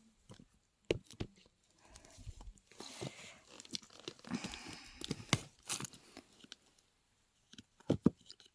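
Close handling noises: crinkling and tearing, with scattered small clicks and knocks, busiest in the middle.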